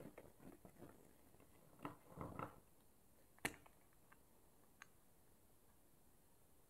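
Faint handling noises and a few small clicks as the screws of a SRAM Guide Ultimate brake lever's reservoir cover are undone with a Torx driver and the cover is lifted off; the sharpest click comes about three and a half seconds in.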